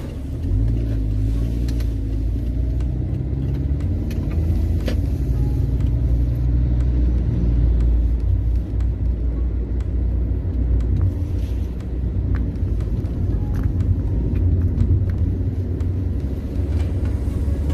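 Car interior while driving: steady low rumble of the engine and road noise heard inside the cabin.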